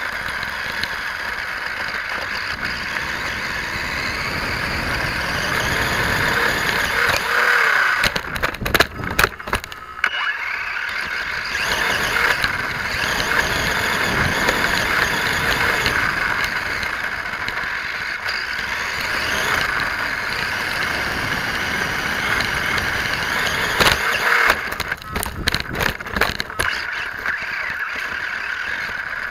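Radio-controlled car driving over dirt and gravel, heard through a camera mounted on its body: its motor runs steadily with tyre and gravel noise, broken by rattling jolts about eight seconds in and again near the end.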